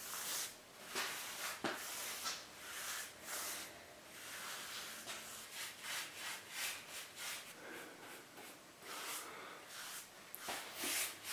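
A paintbrush's bristles swishing over a rough-sawn pine slab in repeated strokes as finish is brushed on, about one or two strokes a second.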